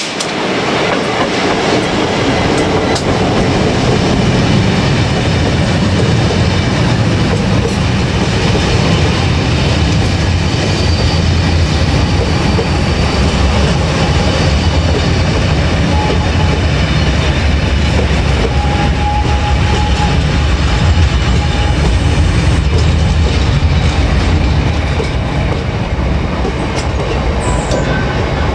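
A freight train's wagons rolling past at close range, wheels running over the track with a steady low rumble and rail clatter.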